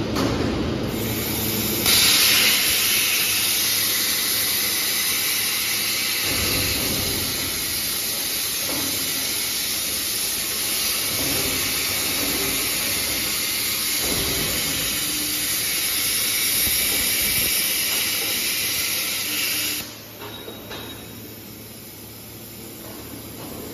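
CNC plasma cutting torch cutting steel plate: a loud, steady hiss that starts sharply about two seconds in and cuts off abruptly near the end when the arc stops, leaving fainter background noise.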